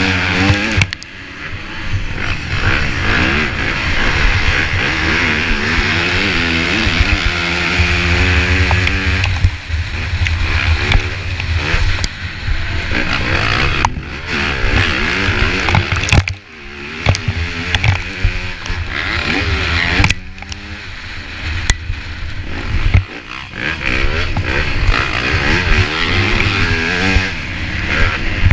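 Motocross bike engine heard close up, its pitch climbing and falling over and over as the rider accelerates and shifts. The throttle is shut off sharply a few times, with the engine note dropping away before picking up again.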